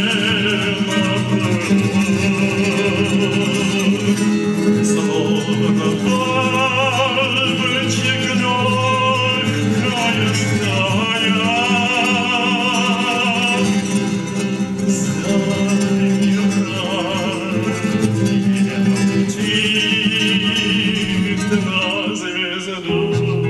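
A man singing a song in Russian, accompanying himself on acoustic guitar; his voice carries a wavering vibrato on held notes.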